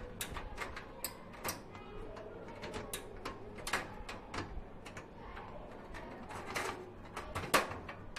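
Irregular light clicks and knocks of a motherboard being pushed and shifted against a steel PC case and its rear I/O shield as it fails to seat.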